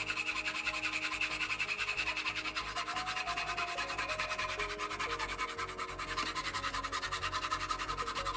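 Hacksaw blade cutting through a polished steel rod held in a vise: a fast, even run of rasping scrapes, with background music underneath.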